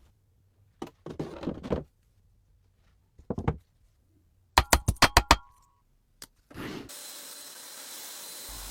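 Tools or parts being handled on a workbench: a short stretch of rubbing or scraping, a couple of knocks, then a quick run of sharp metallic clicks with a brief ring. A steady hiss starts near the end and keeps going.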